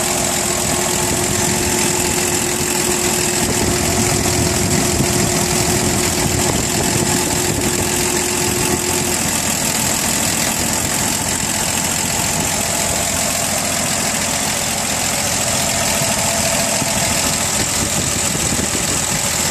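1984 Toyota Land Cruiser engine idling steadily, purring along with no knocking. A steady whine over the idle stops a little under halfway through.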